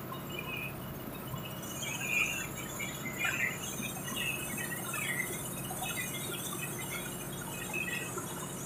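Coal washing plant machinery running with a steady hum, with irregular high squeaks and chirps mixed in, most of them in the middle stretch.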